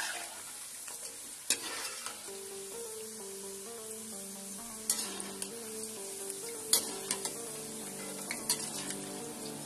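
Potato fries sizzling in hot oil in a steel pot, with a few sharp clinks of a metal skimmer and wire strainer against the pot as the fries are lifted out. Soft background music comes in about two seconds in.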